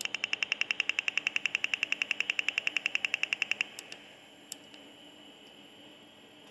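Rapid, even clicking from a 386 PC's speaker during the BIOS memory count at power-on, about eleven sharp clicks a second. It stops after about three and a half seconds, and a few single clicks follow.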